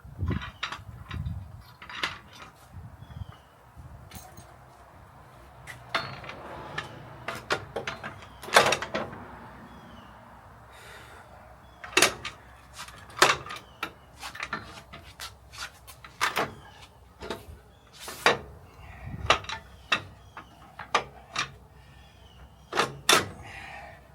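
Irregular knocks and clanks, a dozen or so sharp strikes spread unevenly through the stretch, with quieter handling noise between them.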